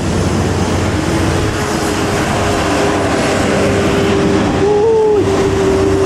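Intercity coach buses in a convoy passing close on a bend, their engine and tyre noise loud and steady. A steady tone is held through most of it and briefly rises and falls near the end.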